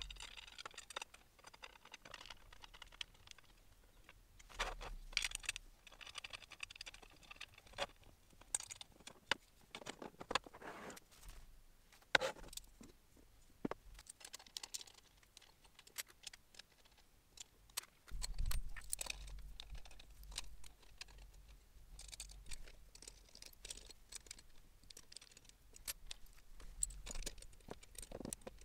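Faint, scattered clicks, taps and rattles of small metal parts and screws being handled while an aluminium extrusion frame of a DIY laser engraver kit is assembled by hand. A low rumble joins in about two thirds of the way through.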